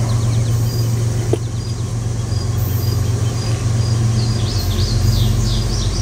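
Steady low hum of an engine running at idle, with birds chirping briefly about four to five seconds in.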